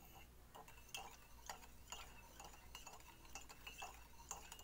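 Metal spoon stirring baking soda and water in a ceramic mug, clinking faintly against the sides about two to three times a second.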